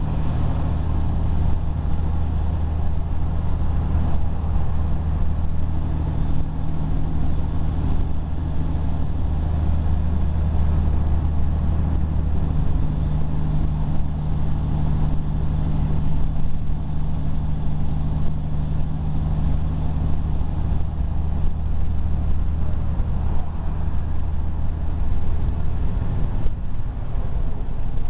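Vehicle engine and exhaust droning steadily at highway cruising speed, heard from on board, with tyre and road noise underneath. The deepest part of the drone eases slightly near the end.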